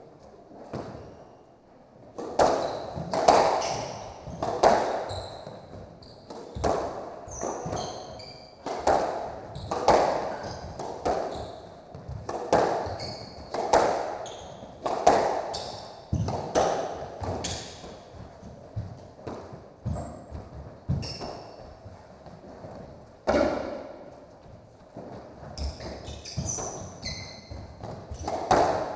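A squash rally: the ball cracking off racquets and the court walls about once every second and a half, each hit ringing in the enclosed court, starting about two seconds in. Sneakers squeak briefly on the hardwood floor a few times.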